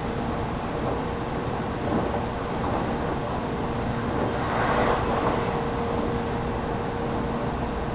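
Onboard running sound of a JR 313 series 0 subseries electric train in motor car KuMoHa 313-4: a continuous rumble of wheels on rail with a steady low hum. The noise swells briefly about halfway through.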